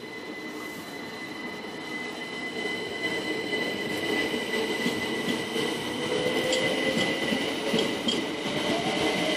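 Southern class 377 electric multiple unit pulling away, growing louder, with a motor whine that rises in pitch as it gathers speed. Its wheels click over the rail joints in a steady rhythm in the last few seconds.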